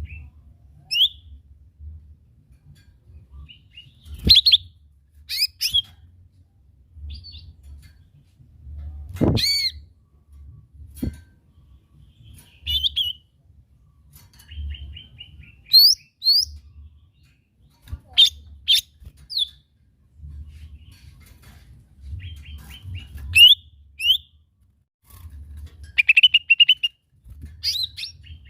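Lesser green leafbird (cucak ijo mini) singing in separate short phrases: quick stuttering runs of chirps, sharp whistled sweeps and trills, with brief pauses between them.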